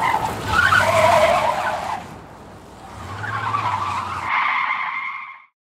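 Car tyres squealing and skidding in two loud surges over a low engine hum, the second ending in a steadier screech that cuts off suddenly.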